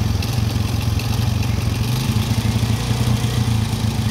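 Large bus engine running steadily, a low even hum that neither rises nor falls.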